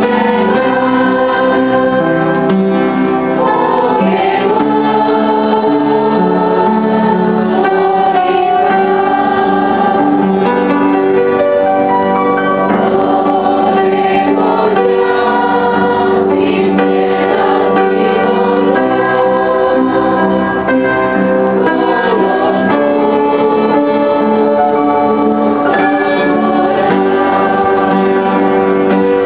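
A choir singing a hymn, accompanied on an upright piano.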